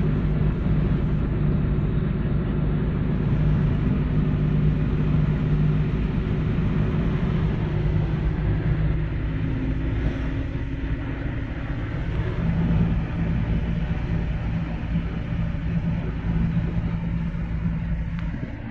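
Car engine and road noise heard from inside the cabin while driving: a steady low rumble with an engine drone whose pitch shifts a couple of times along the way.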